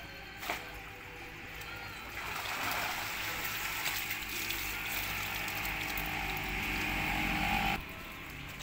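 Water splashing and pouring as a dip net of catfish is lifted out of a tarpaulin fish tank, starting about two seconds in and cutting off abruptly near the end. A short knock comes about half a second in.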